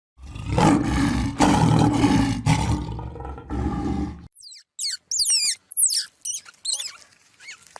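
A big cat roaring, a rough, loud call lasting about four seconds. It is followed by a quick series of short, high-pitched squeaks that fall in pitch.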